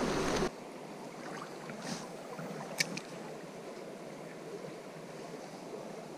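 Small stream flowing, a faint steady rush of shallow water. A loud rustling at the start cuts off abruptly after half a second, and a single sharp click comes about three seconds in.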